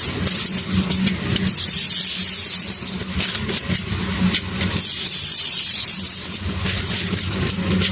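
Power tool grinding steadily: a loud, harsh hiss with a low hum beneath it, no pauses.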